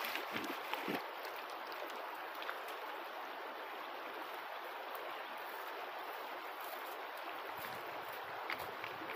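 Shallow creek water running steadily over gravel, with a few short knocks in the first second.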